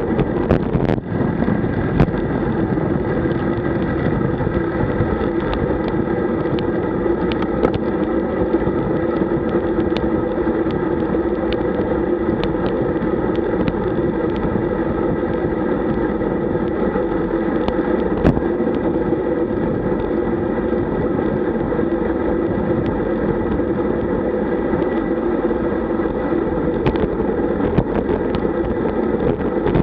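Steady wind and road rumble on a bike-mounted camera's microphone while riding a road bike at about 45 km/h, with scattered small knocks and ticks from the road surface.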